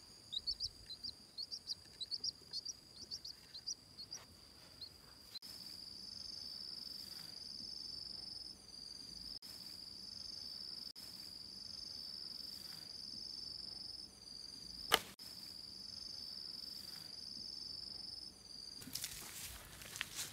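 Insects chirping, then a steady high-pitched insect drone, with one sharp click near the middle and rustling of steps through grass near the end.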